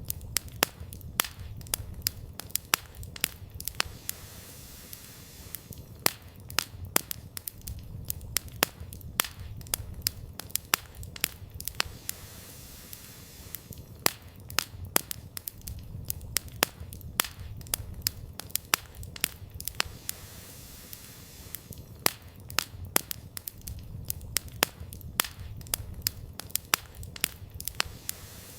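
Wood campfire burning, crackling with irregular sharp pops several times a second over a low steady rumble.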